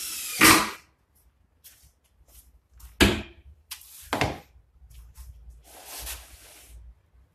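Knocks and bumps from handling a white MDF cabinet carcass on a workbench. There is a loud clatter about half a second in, two sharp knocks at about three seconds and just after four, and a softer scraping rustle near six seconds.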